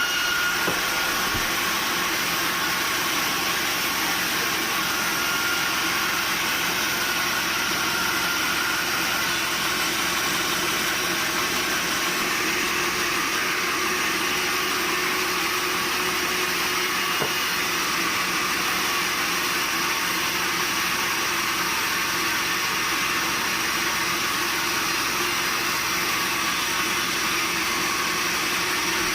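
Sawmill machinery running steadily: a continuous mechanical hum and hiss with faint high whining tones that come and go.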